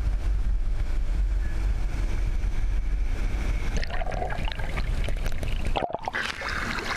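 Wind buffeting the microphone with a steady low rumble while the outrigger canoe sails. About four seconds in it gives way to water rushing and bubbling around the camera underwater. Near the end there is splashing at the surface beside the hull.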